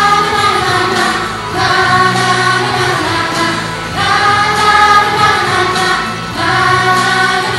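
Music: a group of voices singing a song in held notes, phrase after phrase, each a couple of seconds long.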